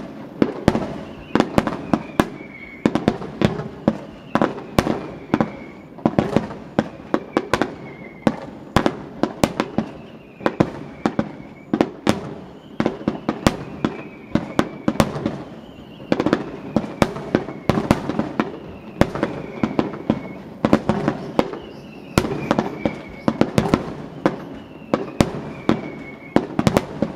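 Fireworks display in full barrage: sharp shell bursts several a second over a continuous low rumble of overlapping booms, with a faint falling whistle recurring every couple of seconds.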